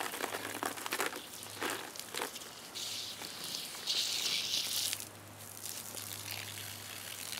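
Water from a garden hose spraying and spattering, with crackly splashes in the first two seconds and a louder hissing stretch of about two seconds in the middle.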